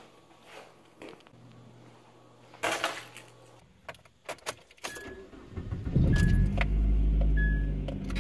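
Keys jangling and a few clicks, then a car engine starting about six seconds in and running steadily, while a short high chime sounds three times.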